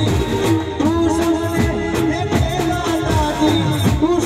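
Live garba music played loud through a stage PA: a keyboard melody and sung vocal over a steady drum beat.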